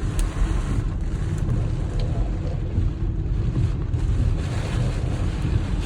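Strong gusty wind buffeting the microphone: a heavy, unsteady low rumble with a rushing hiss above it.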